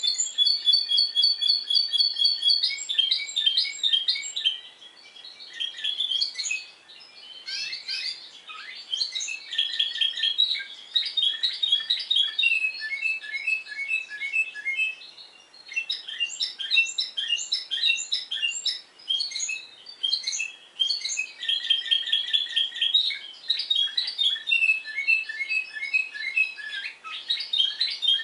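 Timbrado Español canary singing its discontinuous (descontinuo) song: quick strings of repeated notes that change to a new phrase every second or two, with short pauses between some phrases.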